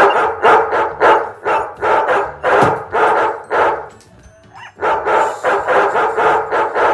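Dogs barking in play, a fast regular run of about two barks a second, with a short break a little past the middle before the barking resumes.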